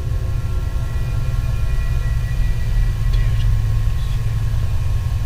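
Steady low rumble of background noise, with a few faint steady whining tones above it; no distinct knocks are heard.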